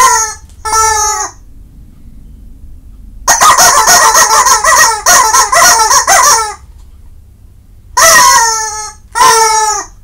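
Rubber chicken squeaky dog toy being squeezed. It gives a squawk at the start and another about a second in, then a fast run of short squawks from about three to six and a half seconds in, then two more long squawks near the end, each dropping in pitch as it trails off.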